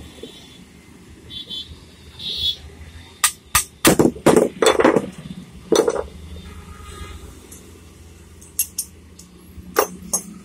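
Metal power-tool parts and hand tools being handled and set down on a wooden workbench: a run of sharp clinks and knocks about three to six seconds in, then a few lighter clicks near the end.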